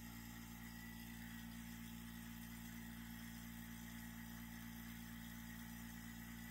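Faint, steady low hum of running lab equipment, with no drips or other events standing out.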